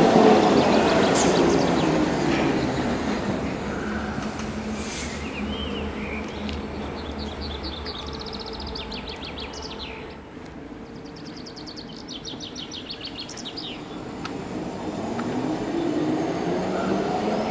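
Hamburg U-Bahn trains: a DT3 train running past with a falling motor whine that fades over the first couple of seconds. Near the end a DT4 train's traction motors whine up in pitch as it pulls away.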